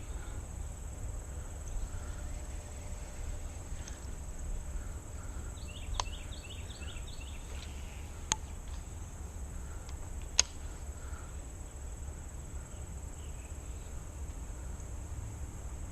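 Summer outdoor ambience dominated by a steady high-pitched insect drone, with a low rumble beneath, a couple of short runs of quick chirps, and three sharp clicks spread through the middle.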